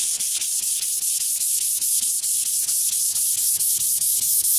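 Sandpaper rubbed back and forth by hand over a primered car hood: a fast, even scratching hiss of about four strokes a second, sanding the primer smooth before painting.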